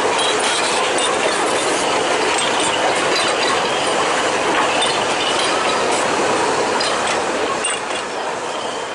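Puffing Billy narrow-gauge steam train rolling past on the rails, a dense run of wheel clicks with brief high metallic ringing, fading away near the end.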